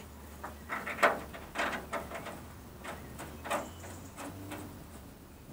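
Irregular short clicks and scrapes of small metal studs being handled and wound into holes in a steel body panel.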